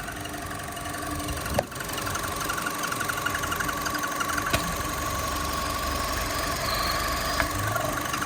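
Chevrolet Cruze engine running with an abnormal high-pitched chirping trill ("ppiririk ppiririk"): a rapid train of short chirps over a steady whine, with a sharp click three times.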